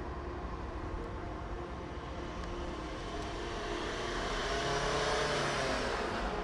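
Cars on the move: the steady engine and tyre noise of a moving car, with a louder swell about four to five seconds in as another car passes close by.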